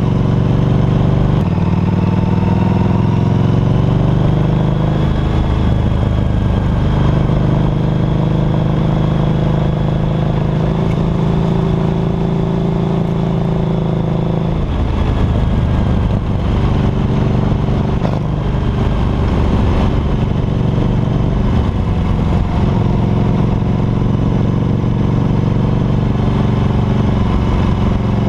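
Harley-Davidson Night Rod Special's liquid-cooled V-twin engine and exhaust running under way, heard close up from the rear footpeg. The engine note rises in pitch over the first few seconds, then dips and shifts about halfway through before settling again.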